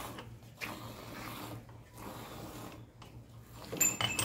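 Cow being milked by hand into a steel pot: streams of milk squirt into the milk already in the pot, a rhythmic swish at each squeeze. A few sharp, ringing metallic clinks come near the end.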